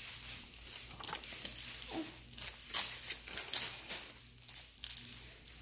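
A small toy wrapper being crinkled and torn open by hand: irregular crackling and rustling with short, sharper tearing sounds scattered throughout.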